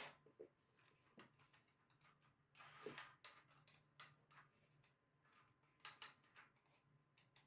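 Faint clicks and knocks of a cordless drill being handled against a wall, with a short scraping rustle about three seconds in and another around six seconds in.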